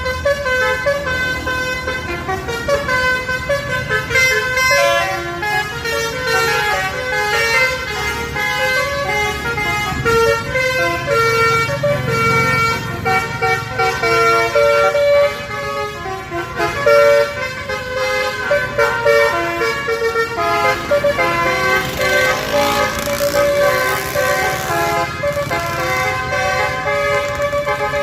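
Buses' basuri musical air horns playing telolet-style tunes, stepped notes changing quickly in runs over the rumble of bus engines. A rushing hiss joins about three quarters of the way through.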